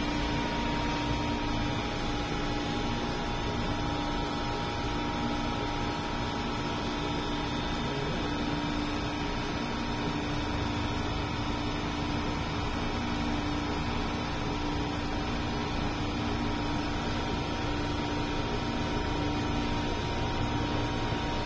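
A steady machine hum with a few constant tones over a low noise, holding level without change.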